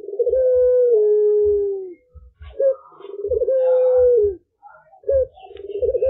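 Young puter pelung (Barbary dove) cooing, a bird still learning its call. Each coo is a short note and then a long, drawn-out note that drops in pitch at its end, repeated about every two and a half seconds.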